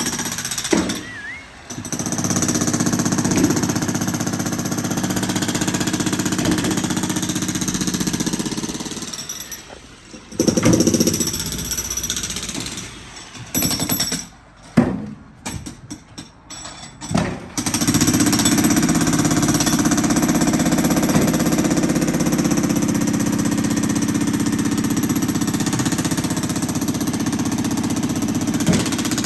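Jackhammer breaking up concrete, hammering steadily in long runs, with brief stops about a second in and around nine seconds, and a stretch of short stop-start bursts in the middle before it runs steadily again.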